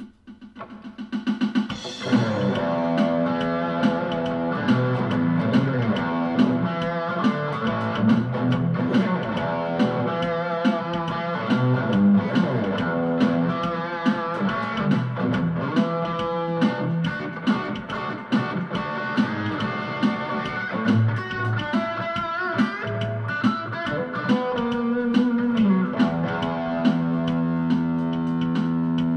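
Electric guitar, a PRS, played through a Roland Cube-10GX practice amp on its crunch setting with the classic stack amp model: picked single notes and chords with string bends. The sound swells in over the first two seconds.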